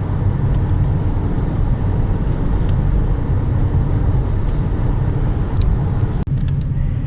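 Steady low road and engine rumble heard from inside a moving car, with a very brief break a little past six seconds in.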